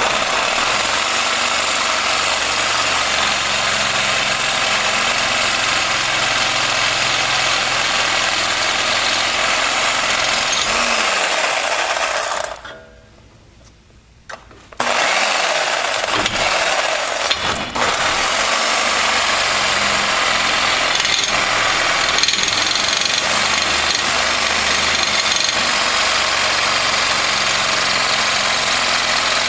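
Reciprocating saw cutting through a seized steel leaf-spring U-bolt, running steadily. It stops about 12 seconds in, winding down, and starts up again about two seconds later.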